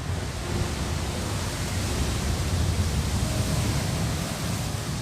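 Rough sea and wind on the cyclone-hit shore: a loud, steady rushing wash over a heavy, fluttering low rumble. It swells just after the start and eases off at the end.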